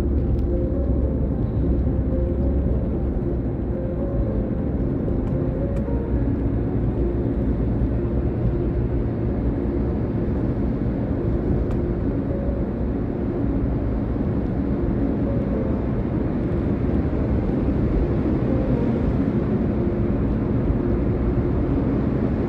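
Car driving along without stopping: steady road and engine noise, a low rumble with a faint engine hum.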